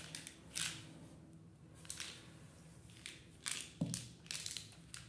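Small plastic bottles and packaging being handled in a cardboard box: several short bursts of rustling and clacking as a toddler rummages through it.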